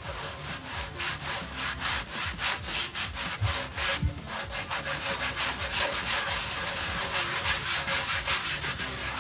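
Microfiber cloth rubbing bumper-and-trim gel into the textured top of a Bose bass module's cabinet, in steady back-and-forth strokes.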